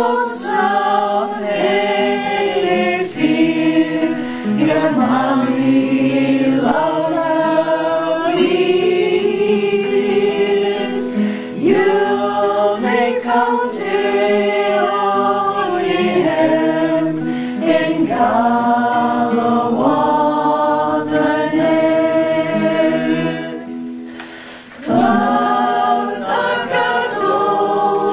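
A small choir singing a lullaby in Scots, several voices together. There is a short break near the end before the voices come back in.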